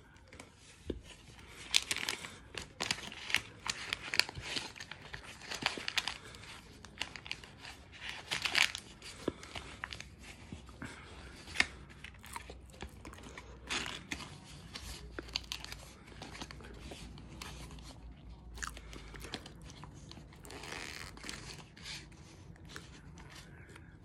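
Crunching and chewing of dry cornstarch (Chestnut Hill brand) close to the microphone: a run of crisp crackling crunches, thickest in the first half and thinning out toward the end.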